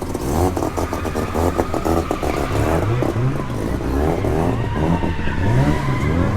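Car engine revving up and down repeatedly, with tyre squeal.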